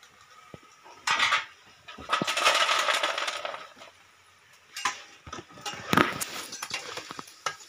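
Metal tongs clinking and scraping on a stainless-steel tray while tossing crisp deep-fried crickets, with the dry rustle of the crickets. There is a longer stretch of rustling about two to four seconds in, then a few sharp clinks.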